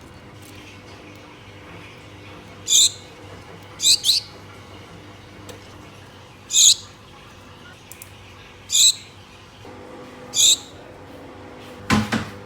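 Pet Gouldian finches calling: about six short, high call notes, one every second or two, one of them doubled. Near the end there is a sharp knock.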